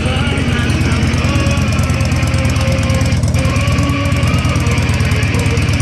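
Harley-Davidson Heritage Softail Classic's Twin Cam 88B V-twin idling with an even, steady beat. Music plays at the same time from the bike's Boss Audio MC420 motorcycle speaker system.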